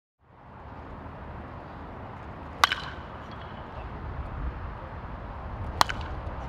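Two crisp cracks of a baseball bat hitting a pitched ball, about three seconds apart; the first rings briefly.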